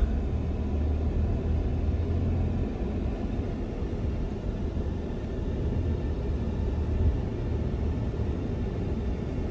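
Ford F-150 pickup driving, heard from inside the cab: a steady low rumble of engine and tyre noise.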